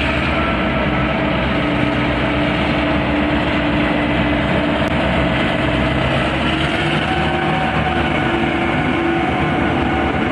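V/Line P class diesel-electric locomotive passing close by with its train: a steady diesel engine note with a few pitched tones over the rumble of wheels on rails. The tones rise slightly a little past halfway as the carriages roll past.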